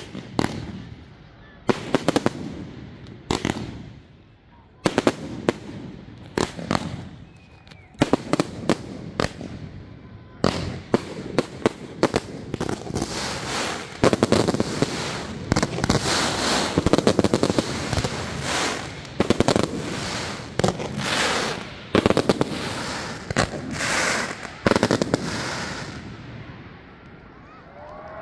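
Aerial fireworks display: sharp bangs about a second apart, building about ten seconds in to a dense barrage of rapid bangs and crackling, which thins out near the end.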